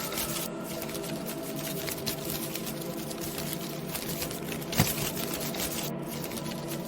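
Halloween ambience soundscape: a steady, many-toned hum under a fine continuous crackle, with one sharp click about five seconds in.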